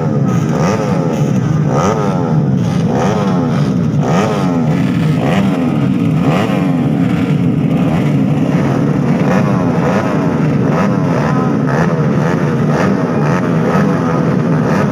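A grid of modified two-stroke and four-stroke underbone motorcycles revving at the start line, many engines blipping up and down at once, a constant overlapping racket.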